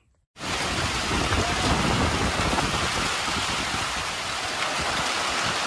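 Steady heavy rain falling on a dirt road and grass, starting abruptly a moment in.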